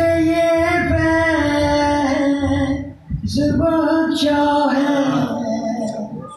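A man's voice singing a manqbat, a devotional poem, in two long sustained phrases with a short breath between them about three seconds in.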